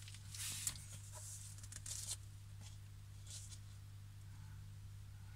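Paper record sleeves of 7-inch singles rustling as they are handled and turned, in a few short scrapes, over a steady low hum.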